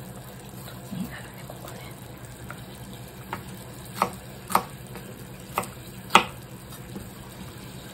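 Kitchen knife cutting green bell pepper on a plastic cutting board: about half a dozen sharp knocks of the blade on the board, spaced irregularly, the loudest about six seconds in.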